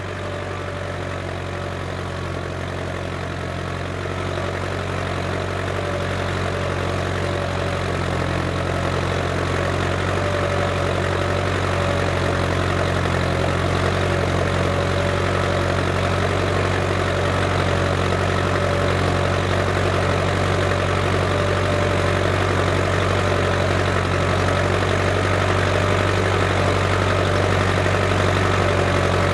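Case International 885XL tractor's diesel engine running steadily while ploughing, growing gradually louder.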